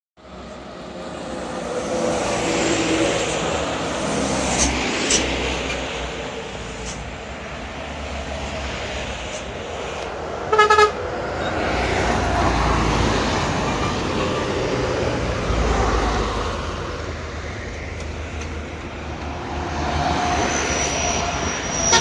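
Heavy diesel buses grinding up a hill, their engines swelling as they pass one after another. About halfway through, a short, loud blast of a bus horn.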